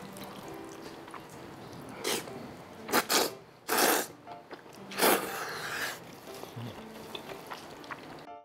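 Noodles slurped loudly from a bowl of curry noodle soup, in four quick slurps about two to five seconds in, over soft background music.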